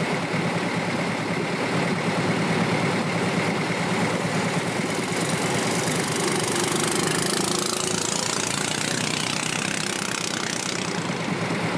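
A boat's engine running steadily, with a hissing rush that swells and fades over the middle few seconds.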